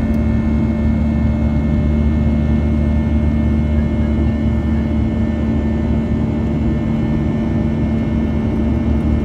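Boeing 737 jet engines and cabin noise heard from a window seat during the climb after departure: a steady, loud drone with a deep hum and a few constant whining tones.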